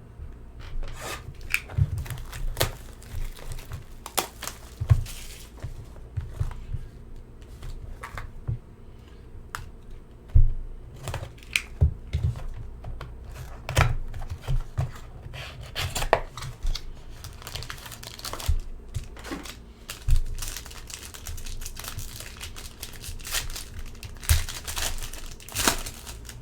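Wrapping on a sealed box of hockey trading cards being torn and crinkled as the box and its foil packs are opened, with scattered sharp taps and clicks. The crinkling grows busier in the last several seconds.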